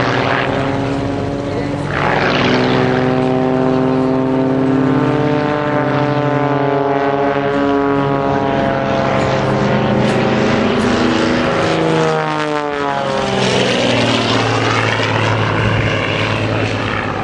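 Piston-engined aerobatic propeller aircraft flying a display: a loud engine-and-propeller drone whose pitch slowly wanders with the manoeuvres. About twelve seconds in the pitch falls sharply as a plane passes, then climbs again.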